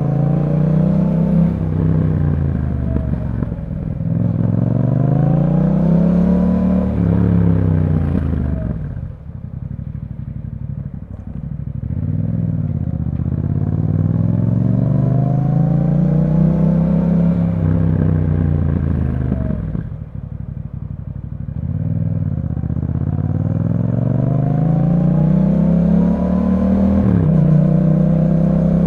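2021 Yamaha MT-07's parallel-twin engine through an Akrapovic exhaust, accelerating and easing off in repeated cycles: its pitch climbs and falls again, dropping to a lower run twice, with a quick dip in pitch near the end.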